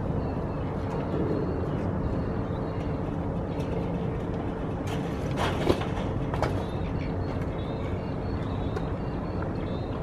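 A person climbing down a steel ladder: a clank and thump about five and a half seconds in, with another knock about a second later, over a steady outdoor rumble.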